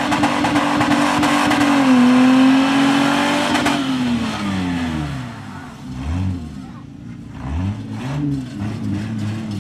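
Holden VT Commodore's six-cylinder engine held at high revs in a burnout, with the rear tyres spinning and squealing. About four seconds in the driver backs off: the revs drop away, and the engine is then blipped up and down a few times at lower revs.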